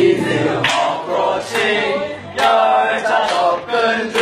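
A group of voices chanting in unison in a steady rhythm, a new phrase starting roughly every second.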